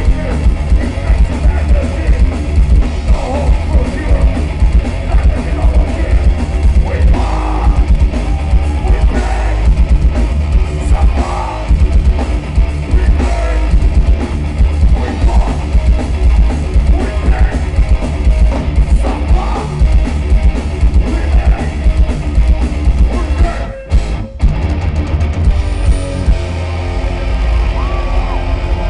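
Heavy metal band playing live, as heard from the crowd: loud distorted electric guitars and pounding drums, with the singer's shouted vocals. The band cuts out for about half a second a little before the end, then crashes back in.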